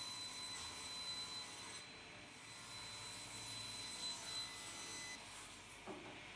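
Sliding table saw running with a steady high whine while a plank is pushed through the blade on the sliding carriage, straightening its edge. A few light knocks near the end.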